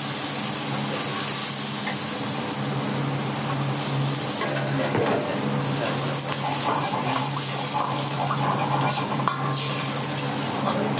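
Chicken pieces sizzling and bubbling in just-added hot water in a wok on a gas flame, with a steel ladle stirring and scraping round the pan, over a steady low hum. In the last few seconds the ladle clicks against the wok.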